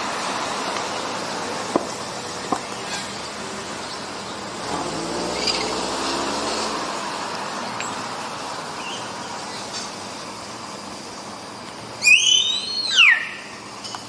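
Common hill myna calling: a loud whistle that arches up and then falls, about twelve seconds in, over a steady background hiss with faint scattered chirps.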